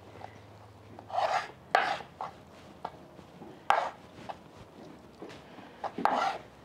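Kitchen knife slicing raw beef steak on a wooden cutting board: a handful of short, irregular scraping strokes as the blade draws through the meat onto the board.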